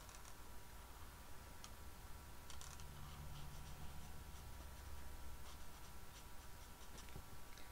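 Faint scratching and small ticks of an alcohol marker nib (Stampin' Blends) colouring on card stock, scattered and irregular.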